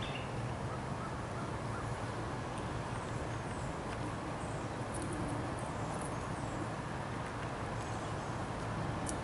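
Steady low outdoor rumble beside a road, with faint, short, high bird chirps now and then.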